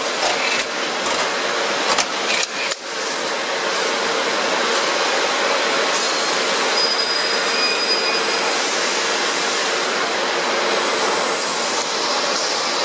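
Busbar production-line machinery running in a factory hall: a steady, even mechanical noise, with a faint high whine coming in about halfway through.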